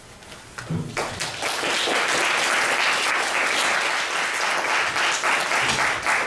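Audience applauding, starting about a second in and holding steady as a dense patter of many hands clapping.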